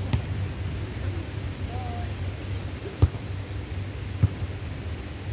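Sharp smacks of a volleyball being struck during play, the loudest about three seconds in and a few lighter ones around it, over a steady low rumble.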